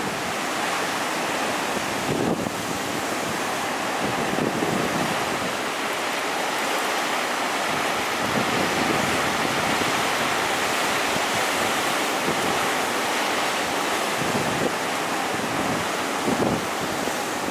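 Heavy ocean surf from a typhoon swell washing steadily, with wind buffeting the microphone in a few short gusts.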